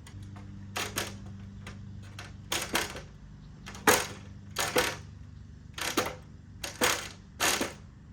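Metal rigging hardware (quick links, carabiners, turnbuckle) clinking and clacking as it is handled: about seven sharp clusters of clicks, often two at a time, over a steady low hum.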